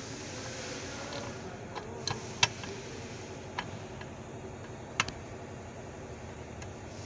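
A handful of sharp, irregular clicks and taps of metal parts and tools while the airbag control unit is bolted into its bracket under the dashboard, over a steady low hiss.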